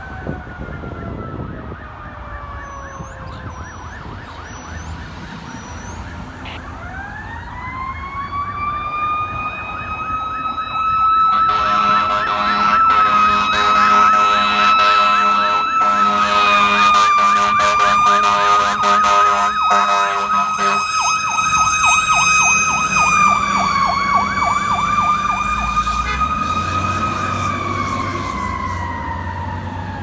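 Fire engine's mechanical Q siren spinning up and held at its peak pitch, over a fast warbling electronic siren. The truck's air horns blast for about ten seconds in the middle, and the Q winds down near the end.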